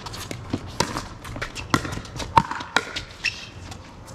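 Pickleball paddles hitting the plastic ball in a rally, with the ball bouncing on the court: a quick string of sharp pops and fainter knocks, several a second, the loudest about two and a half seconds in.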